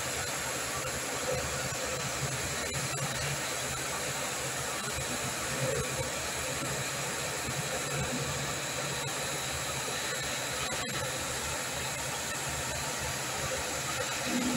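Underslung EOT crane's electric hoist running steadily under remote control: an even mechanical hum and hiss with a thin high whine.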